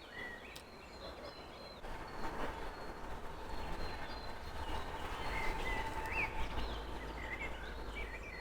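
Outdoor ambience: a steady rushing background with a low rumble that grows in the second half, and small birds chirping briefly a few times.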